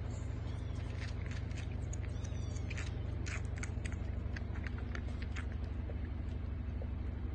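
Young kitten suckling milk from a feeding bottle: quick, irregular wet clicks and smacks, busiest in the first half and sparser later, over a steady low hum.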